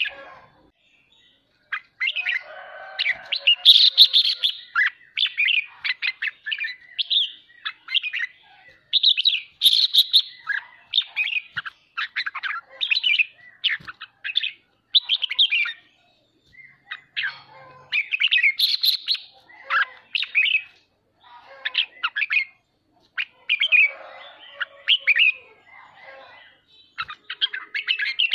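Red-whiskered bulbul singing: a run of short, quick warbled phrases of about a second each, separated by brief pauses, starting about two seconds in.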